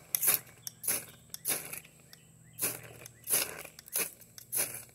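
Spine of a puukko knife scraped hard down a ferrocerium rod over and over, about seven quick rasping strokes, throwing sparks. The knife's spine is too rounded and dull to strike many sparks.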